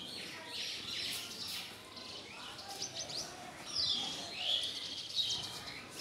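House sparrows chirping: a busy run of short, repeated chirps from several birds, overlapping one another.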